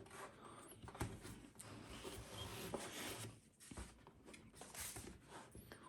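Faint rubbing and handling noises with a few soft clicks as a Lenovo IdeaPad Flex 5 Chromebook is handled and opened for the first time.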